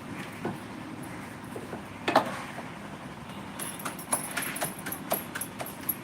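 Close-up eating sounds: a run of sharp clicks and crunchy clacks with one louder knock about two seconds in, the clicks coming thick and fast over the last couple of seconds.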